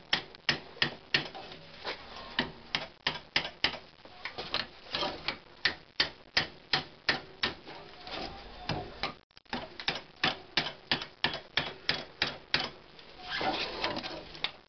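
Ball-peen hammer tapping on the rusted top spring seat of a Toyota Tercel front strut, quick sharp metal-on-metal strikes about two or three a second, to break the seat loose. The tapping stops for about a second and a half a little past halfway, then resumes.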